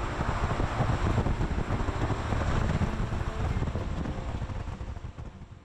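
Steady rush of an Antonov An-225 Mriya's six turbofan engines in flight, mixed with wind on the microphone. It fades out near the end.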